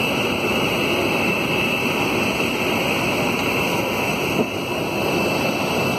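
Steady engine noise, a rumble and hiss with a thin steady high whine, heard from inside a vehicle behind glass.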